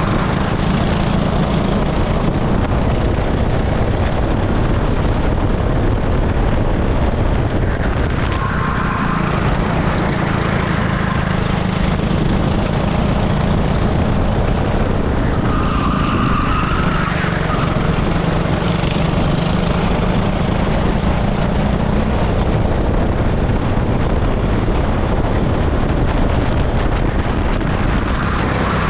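Onboard sound of an 18 hp super kart's engine running hard through a racing lap, its note rising and falling with the throttle.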